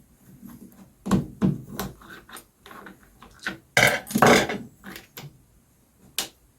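Handling noise from opening a mains plug to get at its fuse: a few knocks and clatter on the workbench, a louder scraping rustle about four seconds in, and a sharp click near the end.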